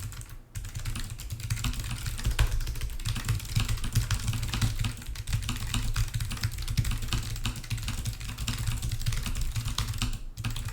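Fast typing on a computer keyboard: a dense, continuous clatter of keystrokes during a timed typing test, with a brief pause just after the start and another near the end.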